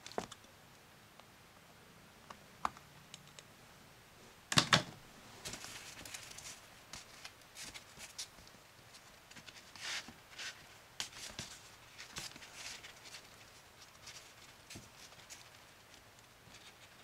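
Hands working a plastic bread-cutter stamp and a slice of white bread: a few light clicks, two sharp knocks about four and a half seconds in, then soft crackling and rustling as the crust is torn and peeled away from the cut-out animal shape.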